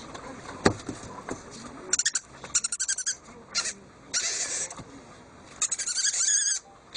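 A young owl gives high calls while it is tickled. They come as quick pulsed bursts, then a longer call about four seconds in, then a wavering, trilled call near the end. A single sharp knock comes just under a second in.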